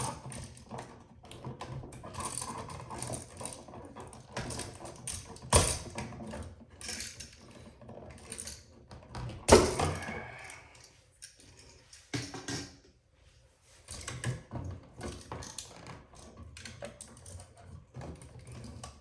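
Electrical wires and switches being handled and worked into a tight wall box: an irregular run of clicks, scrapes and rattles, with two sharper knocks, about six and ten seconds in.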